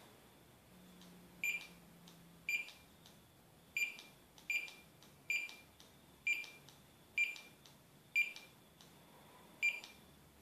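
Handheld barcode scanner beeping as it reads the serial codes on Prius hybrid battery modules: about nine short high beeps, roughly one a second, each marking a successful scan.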